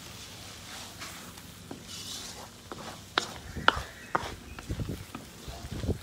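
Wooden spatula stirring a thick meat curry in a large steel wok: scraping, with a few sharp clicks against the pan about three seconds in and softer knocks after.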